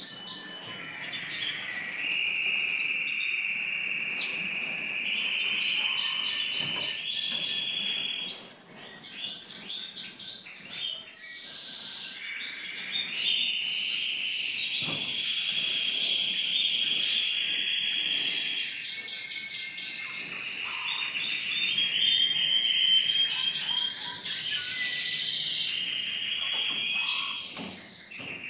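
Caged finches singing: a nearly unbroken twittering song of fast trills and rattling, chattering phrases, with a short break about eight seconds in.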